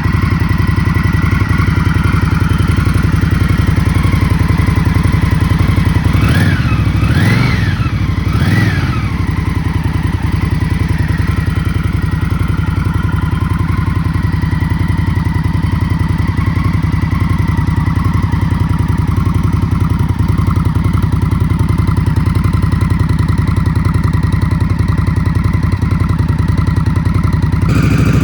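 2024 Indian Scout Rogue's V-twin through its stock exhaust, idling steadily, with three quick throttle blips about six to nine seconds in. Each blip rises and falls back to idle.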